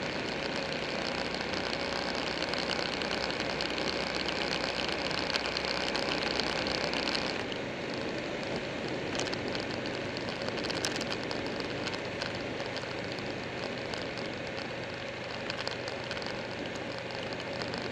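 Buell 1125R's V-twin engine running under way, mixed with steady wind and road noise. About seven and a half seconds in the low engine note drops away and the sound settles a little quieter.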